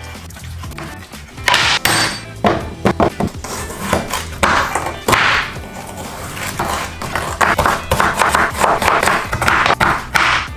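Chef's knife chopping on a bamboo cutting board, as chicken and then carrots are cut: irregular sharp knocks of the blade hitting the wood, coming faster and closer together near the end. Background music plays throughout.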